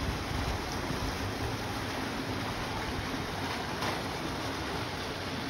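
Water gushing steadily from the mouth of a tube water slide and splashing into the pool.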